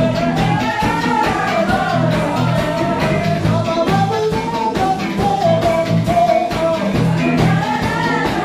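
A band playing live: an upbeat, ska-like tune with a melodic lead line over a steady beat.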